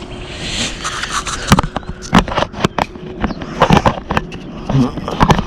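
Camera and tripod being handled: an irregular series of sharp clicks, knocks and scrapes as the camera is fitted onto the tripod.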